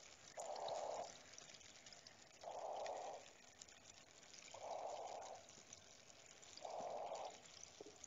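Cave water ambience: a fine, steady trickling and dripping, with a soft breath-like whoosh that comes regularly about every two seconds, four times.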